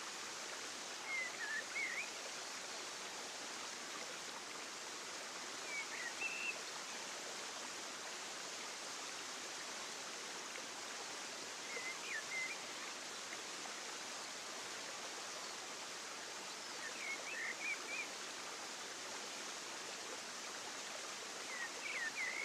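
Steady outdoor ambience: an even rushing, stream-like noise, with a short run of high chirps about every five seconds.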